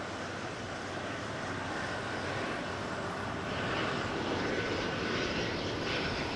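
Aircraft engine noise at an airport: a steady rushing sound with a faint whine, growing gradually louder over the last few seconds.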